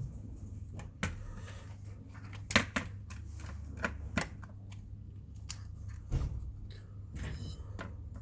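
Scattered sharp clicks and light knocks, as of small tools and metal parts being picked up and set down while working on a scooter hub motor, over a steady low hum. The loudest knock comes about two and a half seconds in.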